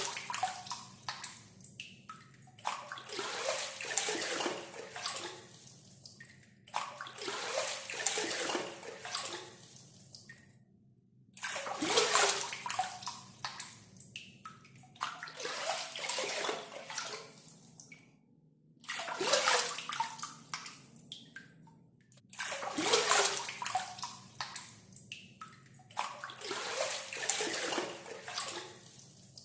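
Water being scooped with a gayung, a hand water dipper, and splashing, over and over: a new splash about every four seconds, each loudest at its start and fading away over two or three seconds.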